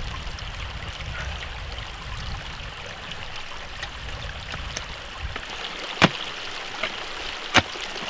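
Pickaxe striking rocky sediment: two sharp hits about a second and a half apart in the second half, with a few lighter knocks, over a steady rushing background noise.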